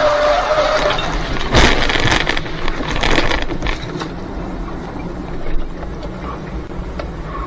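Car travelling, heard from inside the cabin as a steady road and engine rumble, with a sharp bang about one and a half seconds in. The noise is louder for the first few seconds, then settles lower.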